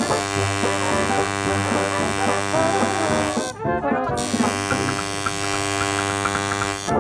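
Coil tattoo machine buzzing steadily as it inks the skin. It cuts out for about half a second midway and stops near the end.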